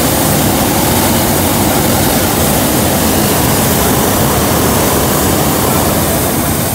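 Hot-air balloon propane burner firing: a loud, steady rush of flame that does not let up.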